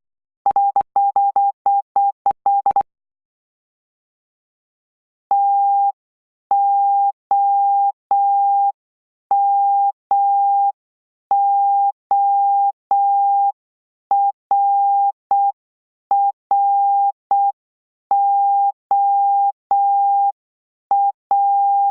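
Morse code sent as beeps of a single steady pitch: a fast run of dots and dashes, then after a pause of about two seconds a slower string of long and short beeps.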